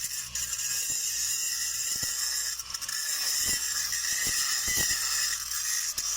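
Stick-welding (SMAW) arc crackling and hissing steadily as a downhill weld pass is run on a large pipe, with a few faint knocks in the middle.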